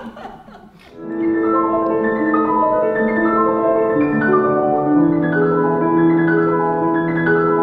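Steinway grand piano playing a flowing passage of overlapping, ringing notes that starts about a second in.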